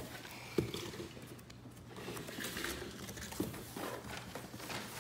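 A large cardboard box being handled and shifted, with faint rustling and two light knocks, one about half a second in and another past the middle.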